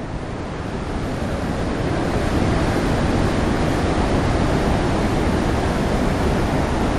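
Wind buffeting the microphone over a steady rushing roar, growing a little louder over the first couple of seconds and then holding.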